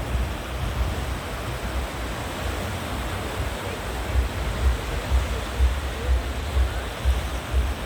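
North Sea surf breaking and washing onto the beach: a steady rushing hiss, with low rumbles growing stronger in the second half.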